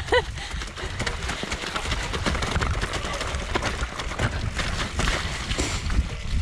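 Mountain bike rolling fast down a wet, muddy trail: tyre noise and splashing through standing water, with a constant clatter of small knocks and rattles from the bike. Wind rumble on the handlebar-mounted camera's microphone runs underneath.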